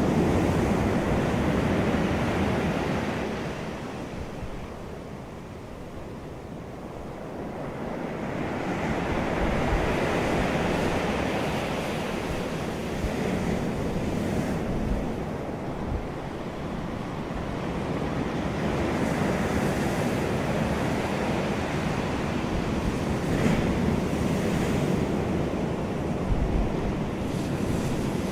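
Ocean surf: waves breaking and washing ashore as a wash of noise that swells and ebbs, easing into a lull about five seconds in and building again a few seconds later.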